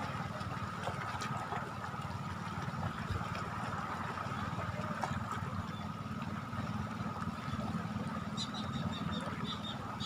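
A steady low engine hum with a high steady whine over it, and series of short high chirps near the end.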